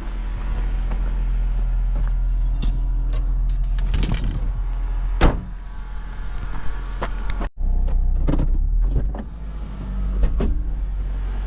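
Vehicle running, a steady low rumble with a low engine hum, with scattered clicks and knocks; the sound drops out suddenly for a moment about seven and a half seconds in.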